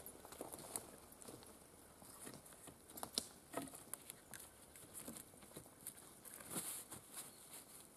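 Dry dead pine branches and twigs crackling and snapping, with forest litter rustling, as a fallen branch is handled and shifted on the forest floor. Scattered cracks throughout, the sharpest about three seconds in.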